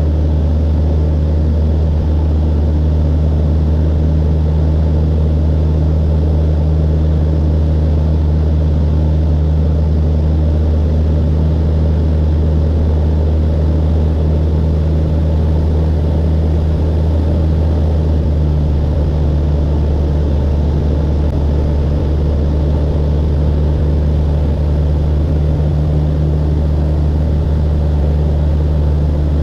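Cessna 172's piston engine and propeller running steadily in cruise flight, heard inside the cabin as a loud, constant low hum.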